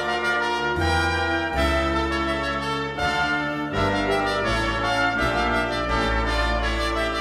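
Music played on brass instruments, with held notes changing over a low bass line.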